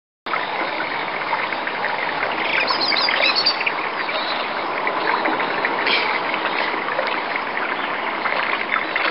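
Steady outdoor noise, with a few bird chirps briefly around three seconds in.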